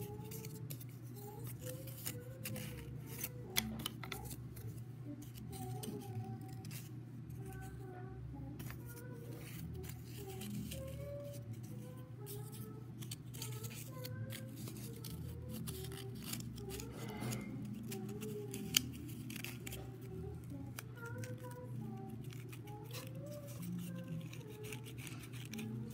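Cardboard toilet-paper-roll rings being handled, bent and cut by hand: a steady run of small crinkles, clicks and snips, with two sharper clicks, one a few seconds in and one past the middle. Soft background music plays underneath.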